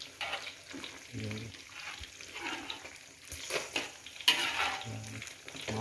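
A spatula stirring and scraping in a metal wok of fish in coconut-milk gravy on the heat, with sizzling and bubbling, in irregular strokes.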